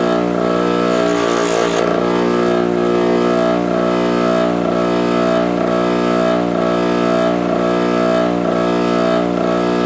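Electric motor of a bench sanding or polishing machine running steadily, a hum with a faint pulse about once a second, as stainless steel trim is worked against it.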